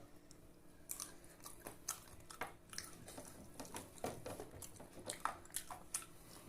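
Close-up eating sounds: wet chewing and lip smacks, a string of soft, irregular clicks.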